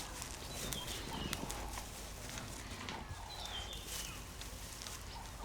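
A short, high animal call stepping down in pitch, heard twice about three seconds apart, over faint clicks and rustling.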